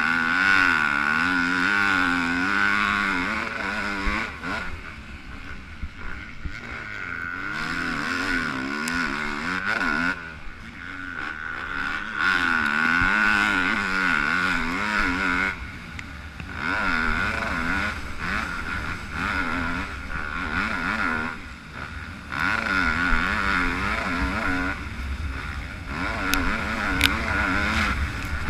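Yamaha YZ250F four-stroke single-cylinder motocross engine at racing throttle. It revs up and down, climbing in pitch through the gears, and is chopped off and opened again several times.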